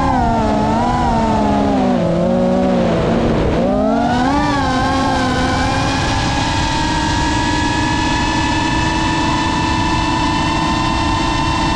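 Geprc Mark 5 five-inch FPV quadcopter's brushless motors and propellers whining as it flies. The pitch wavers with throttle, dips about three and a half seconds in, climbs again, then holds steady.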